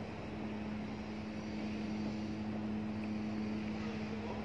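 Steady mechanical hum with a low, even tone: machinery running on a building-services site.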